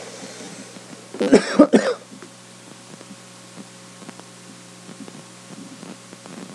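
A man coughing, three or four quick coughs about a second in, with faint scattered clicks around them.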